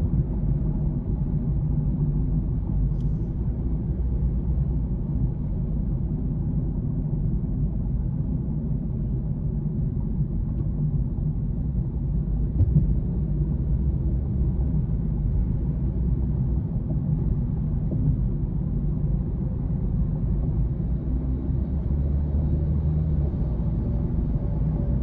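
Steady low rumble of outdoor ambient noise, even throughout with no distinct events.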